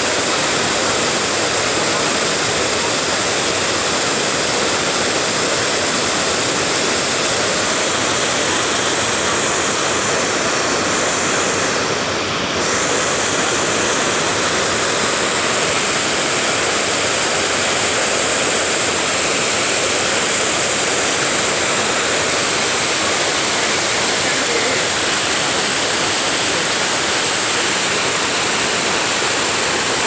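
A large waterfall plunging into a narrow rock gorge: a steady, loud rush of falling and churning water, with a brief dip about twelve seconds in.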